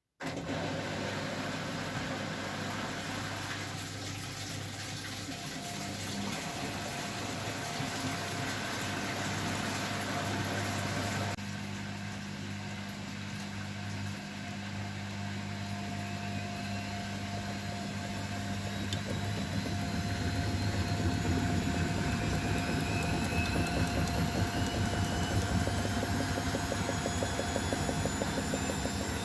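Beko WML 51211 EL+ washing machine running with a steady mechanical hum, then from about two-thirds of the way through a rising whine from the motor as the drum speeds up into its spin.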